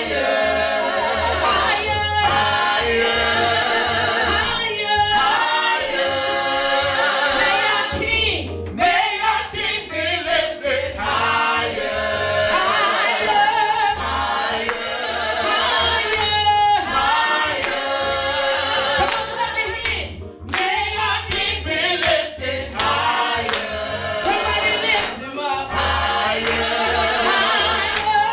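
A man and a woman singing a gospel song into microphones, without a break.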